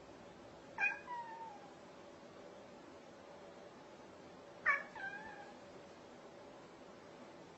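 A cat meowing twice, about four seconds apart: two short calls, each with a sharp start and a tail that falls in pitch.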